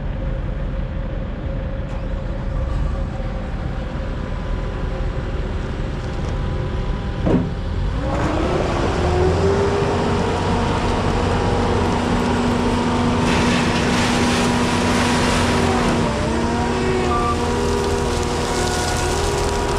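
Diesel engine of a 2018 JCB 215 wheeled skid steer running steadily. After a short clunk about a third of the way in, it revs up with a rising whine that then holds steady. It briefly drops and climbs back again near the end.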